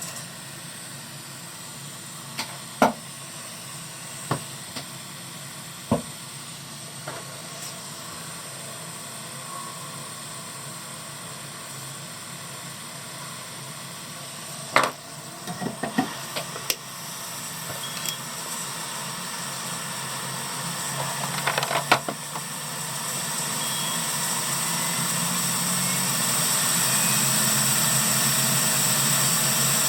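Hot air rework station blowing with a steady hiss that grows louder over the last several seconds, broken by a few sharp clicks and taps.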